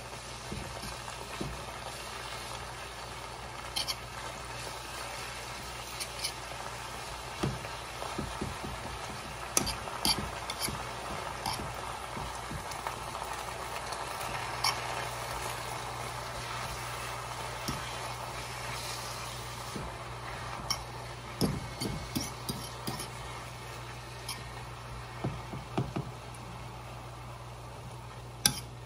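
Spinach with garlic sizzling as it sautés in a skillet, with a steady frying hiss. Irregular clicks and scrapes come from the utensils stirring it and pressing it down against the pan.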